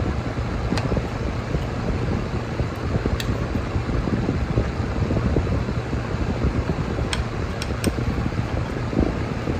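A steady background noise with a few sharp clicks of cutlery tapping and scraping on a plate, three of them close together near the end.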